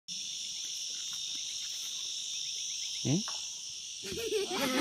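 Steady, high-pitched chorus of insects buzzing and trilling. About three seconds in comes a short call that rises in pitch, and in the last second pitched voice-like sound builds up over the insects.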